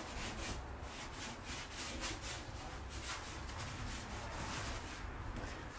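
Foam brush scrubbing encaustic paint across a plywood panel in quick back-and-forth strokes, a rubbing scrape about three times a second.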